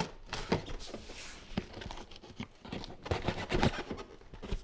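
Hands working at a large cardboard shipping box: irregular taps, scrapes and rustles against the cardboard, bunched near the start and again about three seconds in.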